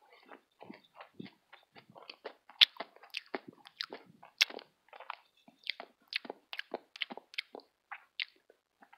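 Close-up chewing of crunchy food: irregular crisp crackles and bites several times a second, picked up by an earphone microphone held at the mouth.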